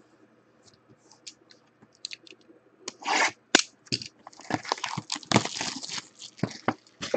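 Plastic shrink wrap being handled and pulled off a sealed Topps Five Star baseball card box: a few faint handling clicks, then a series of crinkling, tearing bursts from about three seconds in.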